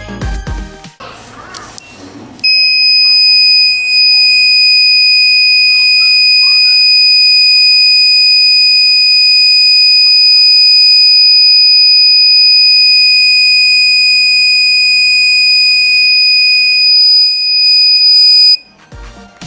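Buzzer of a homemade loop-break burglar alarm circuit, sounding because the loop wire is broken. It gives one steady, loud, high-pitched tone for about sixteen seconds, then cuts off suddenly. Music plays briefly before the tone starts and again after it stops.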